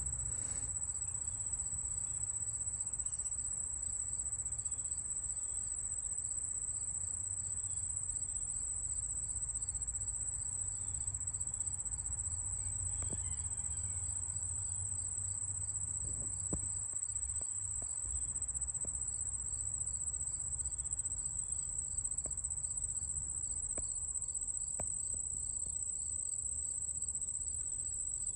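Insects calling: one steady, high-pitched trill, with a second insect's short chirps repeating about three times a second below it. A low rumble runs underneath.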